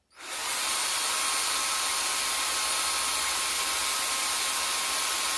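Cordless drill starting up and then running at a steady speed, boring a hole into the wooden butt stock of an air rifle.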